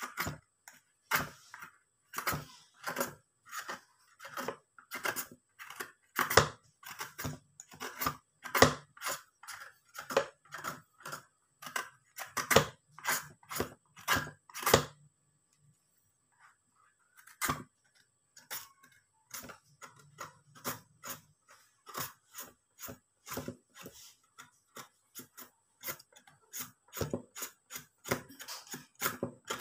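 A handheld peeler-shredder scraping strips off a young green papaya, in quick repeated strokes about one to two a second, with a pause of a couple of seconds about halfway through.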